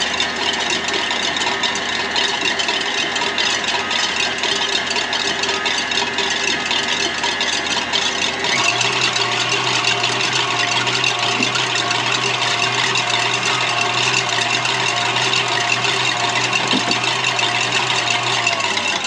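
KitchenAid tilt-head stand mixer running steadily, its wire whisk beating a warm-water, sugar and yeast mixture in the stainless steel bowl to froth it. The motor's hum steps up in pitch about halfway through.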